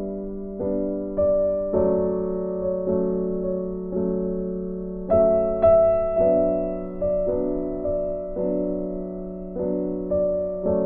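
Soft background piano music: gentle chords struck roughly once a second, each left to ring and fade.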